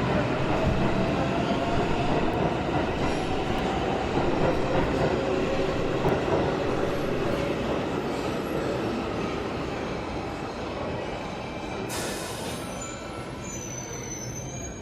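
Metro train pulling out of a station: steady rumble with a motor whine that slowly changes pitch, fading gradually as the train leaves. Near the end come a brief hiss and thin high wheel squeals.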